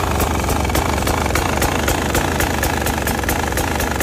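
Beta 300RR's two-stroke single-cylinder engine idling steadily, a low running note with regular sharp ticks over it.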